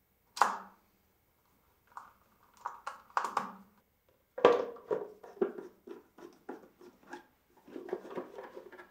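Screwdriver work on a plastic motor-starter enclosure: a sharp click, a few knocks and a louder clack as the cover goes on, then a run of short clicks and scrapes, about three a second, as the cover screws are driven in.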